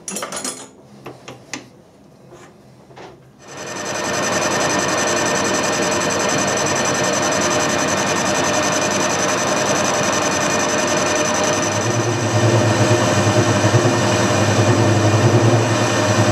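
Metal lathe facing the end of an EN16 steel bar with a carbide insert tool. After a few short knocks in the first two seconds, the steady scraping hiss of the cut starts about three and a half seconds in, and a low hum joins it about twelve seconds in.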